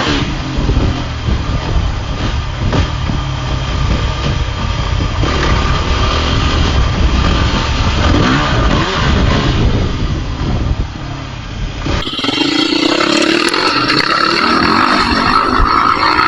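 Dirt bike engine running and revving through soft sand, with heavy wind buffeting on the microphone. About twelve seconds in it cuts abruptly to another engine at a steadier, higher note that rises slightly.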